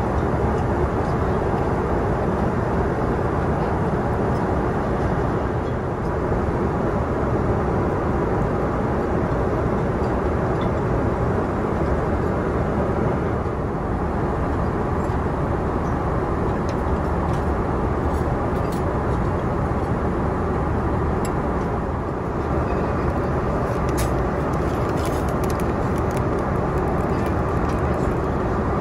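Steady cabin noise of a Boeing 777-300ER in flight: the even rush of air and engine noise through the cabin. A few faint light clicks come in the second half.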